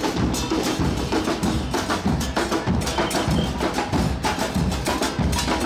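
A street percussion band with bass drums and smaller drums beating a fast, steady rhythm.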